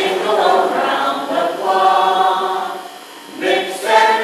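A mixed choir of men's and women's voices singing a Christmas carol in long held notes; one phrase ends about three seconds in and, after a short breath, the next begins.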